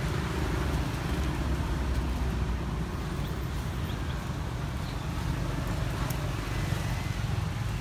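Steady low rumble of outdoor background noise, with a few faint short high chirps.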